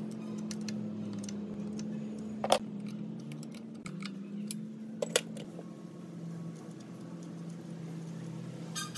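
Sharp metallic clinks of a steel spanner against a fuel-line fitting on a diesel engine: once about two and a half seconds in and twice in quick succession about five seconds in. Soft background music with held notes plays underneath.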